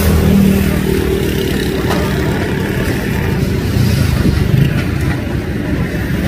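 Motor vehicle engines running steadily, with a low engine hum that changes pitch about three and a half seconds in.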